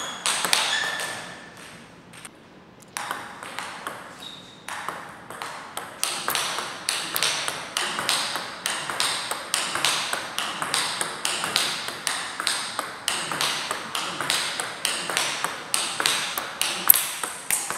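Table tennis rally: a celluloid-type ball cracking off rubber-faced bats and ticking on the table in a quick, even run of sharp clicks, about three or four a second, after a short quieter lull about two seconds in.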